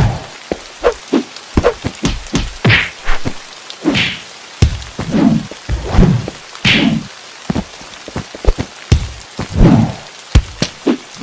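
A quick, irregular run of sharp hits and thuds, with a few rushing whooshes swelling in between.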